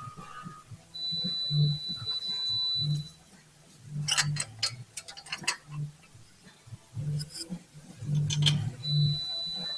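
Metal tools clicking and clinking against each other and the engine in quick runs, with a high, steady whine twice.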